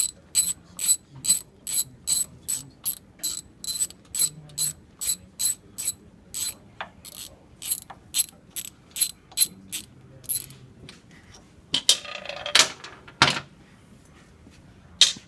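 Hand ratchet wrench clicking in quick, even strokes, about two to three a second, working a brake caliper slide bolt loose. The clicking stops about ten seconds in, followed by a short scraping rattle and a few sharp metal knocks.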